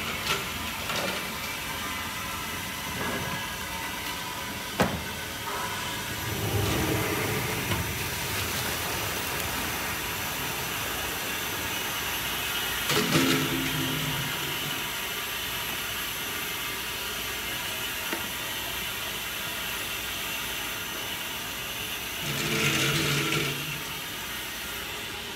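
Steady hiss and hum of tofu-shop machinery, with a sharp knock about five seconds in. Partway through, hot soy milk is poured from a large steel pot into tofu moulds.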